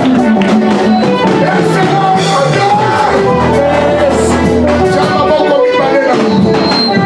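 Upbeat music with bass, drums and a melodic lead line, possibly with singing; a steady beat throughout.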